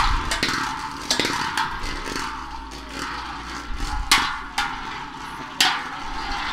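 Two Beyblade Burst spinning tops whirring as they spin across a plastic sled's surface. They clash with sharp clacks several times, loudest about four seconds in and again a little before the end.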